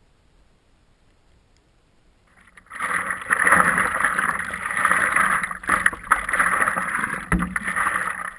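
Quiet at first, then, about three seconds in, loud water and wind noise on a camera mounted at the nose of a moving stand-up paddleboard, with a thin steady high whine over it. It cuts off abruptly at the end.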